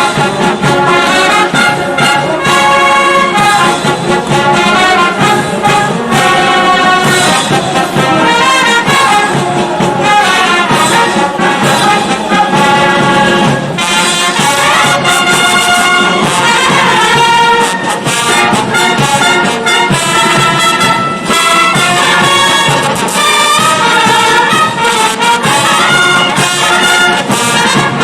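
Military brass band playing a march, with trumpets and trombones carrying the tune over a steady beat.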